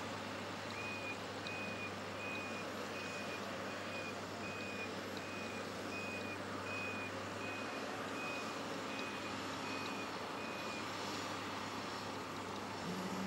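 Back-up alarm of an airport ground vehicle beeping at one pitch, about every two-thirds of a second, about fifteen times, then stopping near the end. Under it runs a steady low hum of apron noise.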